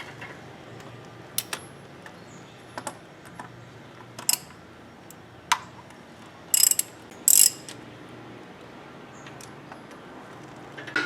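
A ratchet wrench working the cartridge oil filter housing cap on top of the engine, with scattered sharp metal clicks and two short louder bursts of ratcheting about two-thirds of the way through, over a steady low hum.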